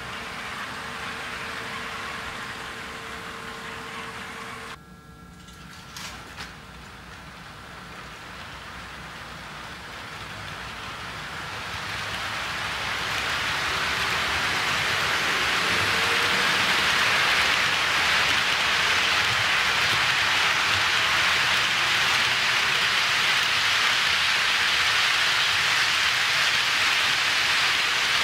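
HO scale model freight train rolling past on sectional track: the wheels of a long string of cars make a steady, rain-like hiss that builds over about ten seconds and then holds. For the first five seconds a steady hum with a faint whine from the passing locomotives, which cuts off abruptly, followed by a couple of clicks.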